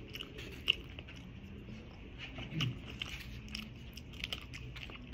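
Close-miked chewing and mouth sounds of a person eating noodles by hand, with many small clicks and smacks scattered throughout. A short low hum about two and a half seconds in.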